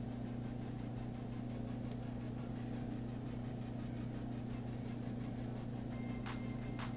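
Steady low electrical hum over a soft even hiss, with a few light clicks near the end.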